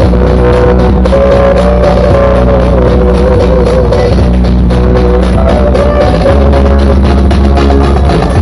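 Music played loud through a 'sound horeg' carnival sound system stacked with twelve planar subwoofer boxes, with deep, heavy bass notes under a melody line. This is a sound check of the rig.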